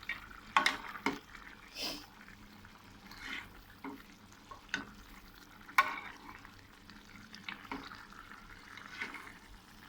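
Pan of sweet and sour squid adobo being stirred: a cooking utensil clinks and scrapes against the pan a handful of times over a low frying hiss.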